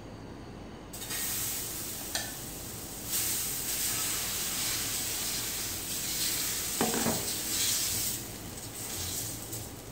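Green gram dosa batter sizzling on a hot tawa as it is poured and spread in circles with a ladle. The sizzle starts about a second in, grows louder around three seconds and eases near the end, with a brief knock of the ladle about two seconds in.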